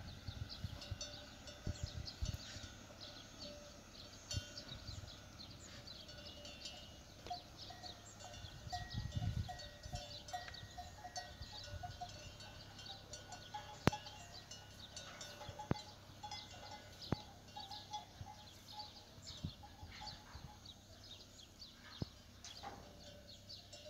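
Fighting cattle in a corral: cowbells clanking now and then, with a run of ringing notes around the middle, over small birds chirping.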